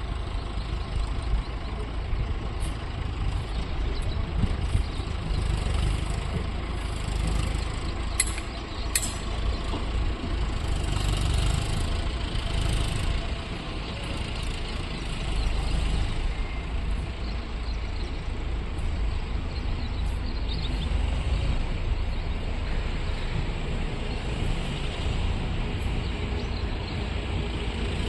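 Indian Railways train running on the track: a steady heavy rumble throughout, with two short sharp high clicks or squeals about 8 and 9 seconds in.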